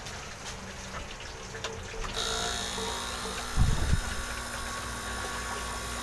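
A refrigeration compressor rigged as a flushing pump switches on about two seconds in and runs with a steady hum, driving R-141B flushing chemical through the refrigerator's evaporator and condenser. A brief low rumble comes about a second and a half after it starts.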